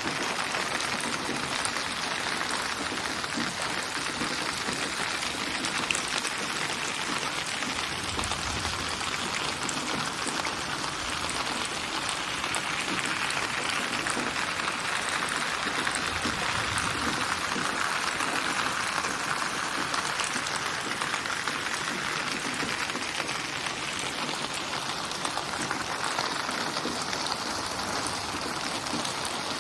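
Steady rainfall ambience, a dense patter of raindrops built from many layered rain recordings. It is spatialised with 8D/HRTF processing so the rain seems to surround the listener, and its intensity swells and eases slowly.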